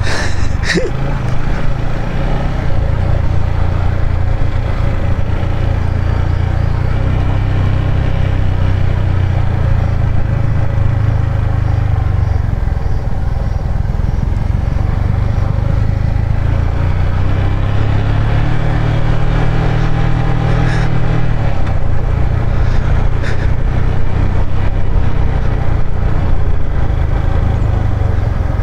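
Yamaha MT-15's 155 cc single-cylinder engine running steadily at low revs in low gear while the bike descends a steep slope at low speed, a constant low drone.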